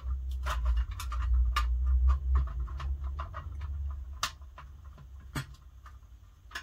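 Small sharp metal clicks and taps of a bolt and nut being fitted by hand into a metal frame, over a low rumble that fades about four seconds in.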